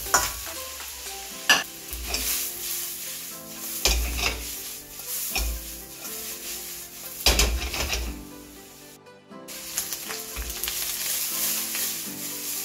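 Cabbage and meat sizzling in a hot wok as a metal ladle stirs and scrapes through them, with a few sharp clanks of the ladle against the pan.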